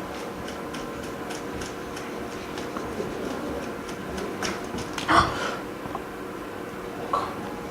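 Small hand-work noises on a repair bench: a few light ticks, then a sharp knock about five seconds in and a softer one near the end, over a steady machine hum.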